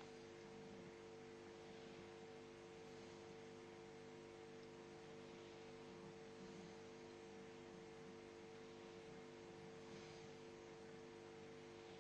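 Near silence: a faint, steady electrical hum of several tones over light hiss, with no change in the sound.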